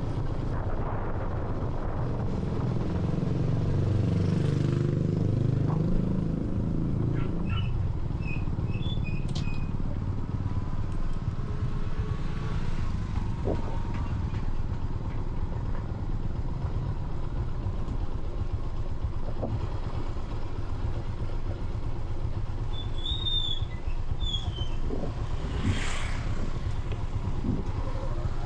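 Steady low rumble of a vehicle engine, swelling for a few seconds near the start with its pitch falling and rising again. A few short high chirps come through midway and near the end.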